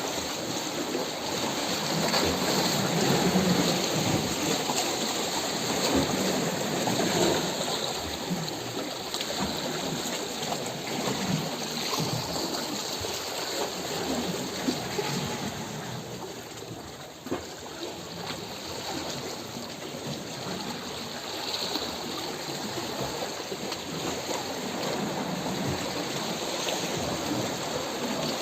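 Steady rushing water noise with many small irregular splashes and patters running through it.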